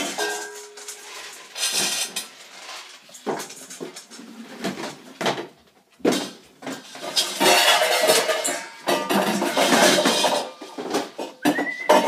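Dishes and dog bowls clattering in a kitchen sink in irregular bursts as a puppy rummages through them, over background music.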